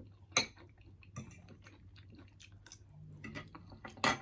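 Close-up chewing and mouth sounds of a person eating, with soft wet smacks and clicks, two of them louder, one about half a second in and one near the end.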